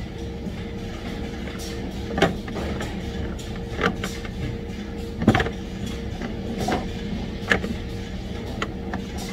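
Steady hum of factory machinery with a constant tone, broken by half a dozen sharp clacks and knocks as rubber hoses and a metal hose fitting are handled, the loudest about two and five seconds in.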